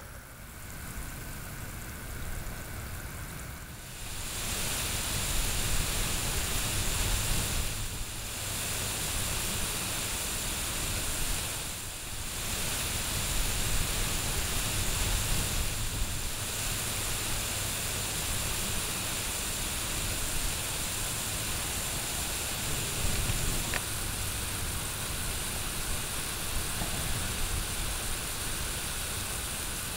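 Lawn sprinklers spraying water: a steady hiss of spray over a low rumble, dipping briefly a few times in the first half.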